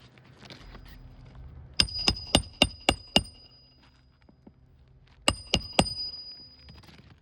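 Hammer driving roofing nails into a replacement shingle: six quick ringing metallic strikes, about four a second, then a pause and three more.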